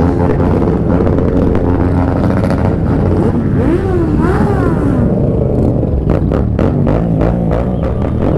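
Several motorcycle engines revving and pulling away together, the rider's own Yamaha MT-07 parallel twin among them, pitch rising and falling as the throttle is worked. A run of short sharp crackles about six seconds in.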